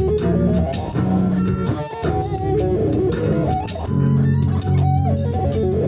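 Electric guitar playing a bluesy lead line with slides and bends over a backing of sustained bass notes and drums. A drum hit lands about every second and a half.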